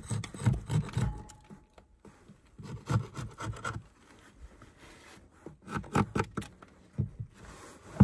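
Flat metal hive tool scraping propolis off the wooden top bar of a Layens hive frame, in several short bursts of strokes with pauses between.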